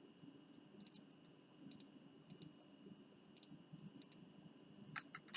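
Faint computer mouse clicks, scattered and often in quick pairs, the loudest near the end, over a low background hum.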